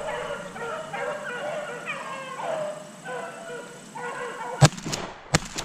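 A pack of beagles baying on a running rabbit: many overlapping, drawn-out howling voices. Near the end a shotgun fires once with a loud crack, followed by a couple of sharper, fainter cracks.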